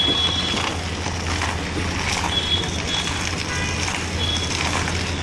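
A steady low machine hum under street noise, with a few short high-pitched beeps.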